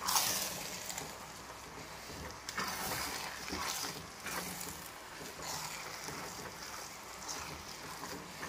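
Spatula stirring wet rice and tomato puree in a stainless steel pot: repeated soft scraping and squelching swells every second or two.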